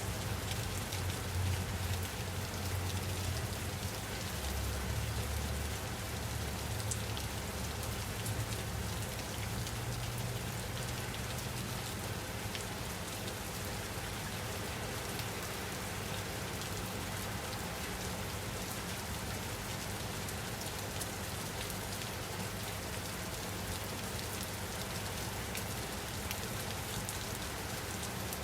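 Steady rain falling on a surface, a dense even hiss of many drops with a soft low rumble underneath that is stronger in the first part.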